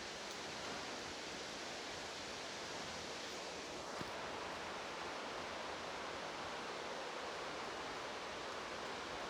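Steady rushing noise of heavy rain pouring down on the roof of a large greenhouse dome, with one faint click about four seconds in.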